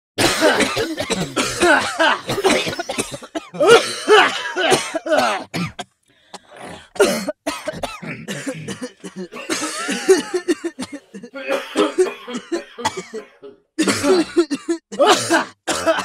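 People coughing in rapid fits, several harsh coughs in a row, with short breaks between fits.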